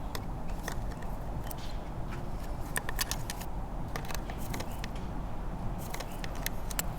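Scattered light clicks and small rattles of hoses and their fittings being handled and pushed back onto the throttle body, over a steady low hum.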